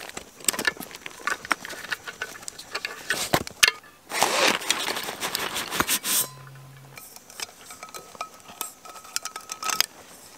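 Backpack gear being handled: a run of small clicks and clinks from plastic buckles and webbing straps, with a couple of longer rustles of pack fabric, quieter after about six seconds.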